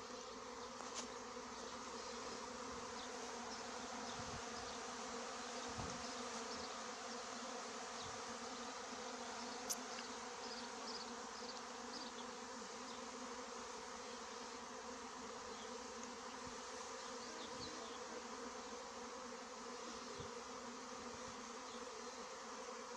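Honeybee swarm clustered on a tree trunk, buzzing with a steady hum. A single sharp click sounds about ten seconds in.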